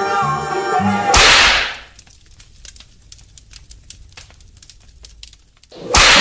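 Background music breaks off about a second in with a sharp whip-crack sound effect that fades over about half a second. Faint crackling follows, then a second crack near the end as the music returns.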